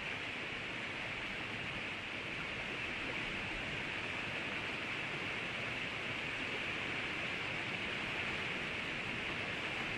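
River water rushing steadily: an even, unbroken hiss, brightest in the upper middle, with no birdsong.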